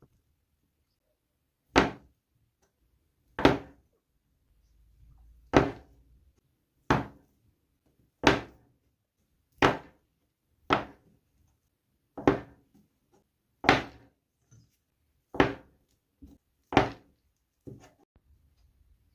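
A loaf of handmade soap being cut into bars on a wooden board. About eleven sharp thunks land at a steady pace, one every second and a half or so, with a few softer knocks near the end.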